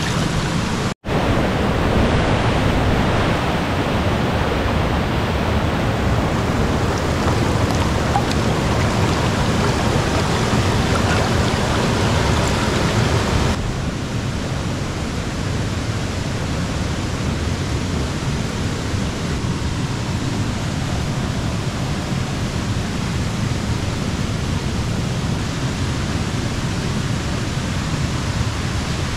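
River flowing, a steady rush of water. It drops out for an instant about a second in and turns slightly quieter and duller about halfway through.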